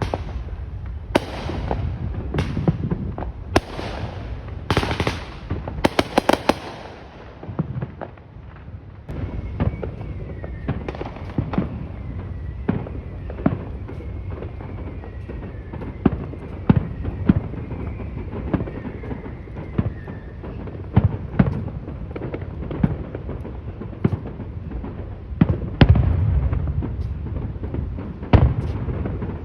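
Fourth of July fireworks going off: repeated sharp bangs and booms at uneven intervals, with a quick run of crackling pops about five seconds in.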